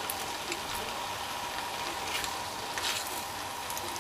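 Marinated chicken wings sizzling in a frying pan: a steady hiss with a few sharp pops and crackles.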